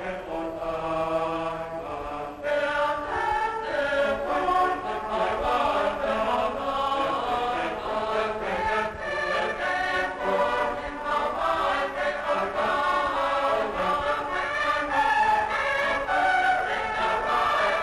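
Soundtrack music: a choir of voices chanting in sustained chords, growing fuller about two and a half seconds in.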